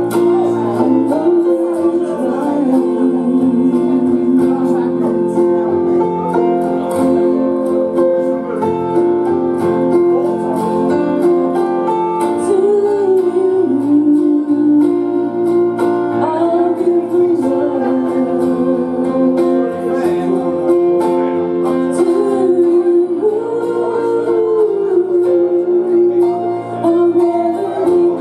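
A woman singing karaoke into a microphone, amplified over a recorded backing track.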